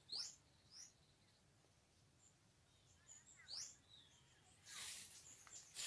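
Faint bird chirps: a few short, rising high calls near the start and another a little past three seconds in, with a brief soft rustle near the end.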